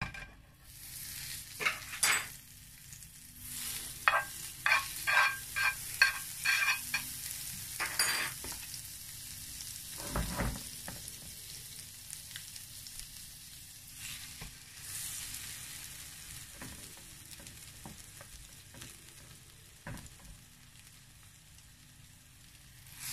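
Butter sizzling as it melts in a hot nonstick frying pan, a steady hiss. Early on a metal spoon clinks against the pan about six times in quick succession, and a dull thump comes about ten seconds in.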